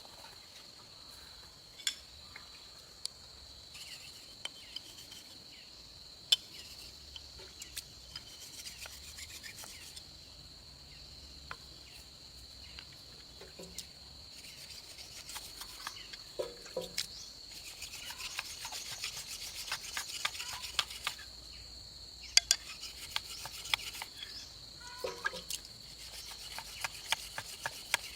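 Wood being scraped and rubbed by hand, with scattered sharp clicks and taps and a denser spell of scraping past the middle, over a steady high drone of insects.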